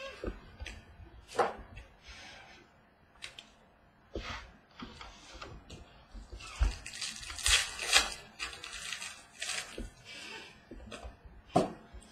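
Trading cards being handled on a wooden table: irregular rustling and sliding of cards, with a few sharp taps as they are set down, the loudest about a second and a half in and near the end.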